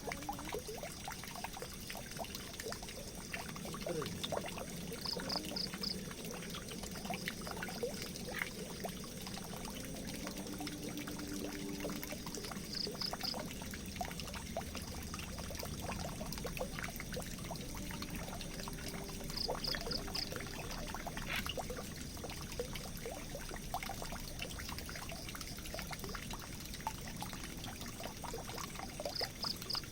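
Water pouring and trickling steadily into a drain. A short high chirp of three or four quick pips recurs a few times over it.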